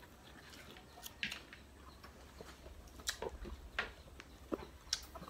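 Eating sounds from people eating by hand: chewing and lip smacks with scattered short, sharp clicks, the strongest about 1, 3 and 4 seconds in.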